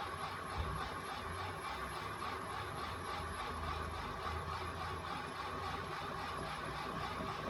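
Homemade magnet-and-crank mechanism running steadily, driven by a battery-powered electric motor: an even whirring hum with a low rumble under it.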